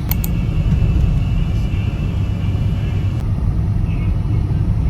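Steady low rumble of a moving road vehicle, with two sharp clicks just at the start.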